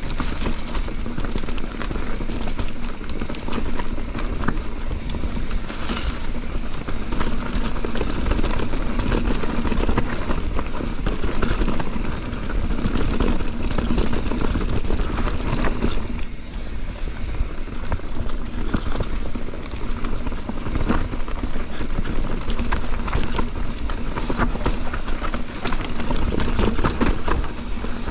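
Mountain bike riding fast over a rough trail: tyres rumbling over the ground and the bike rattling, with many sharp knocks from roots and rocks.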